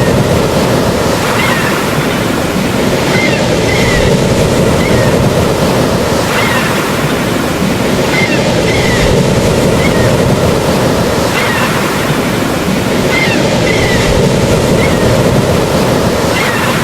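Steady rush of ocean surf, with short high chirps recurring every second or two.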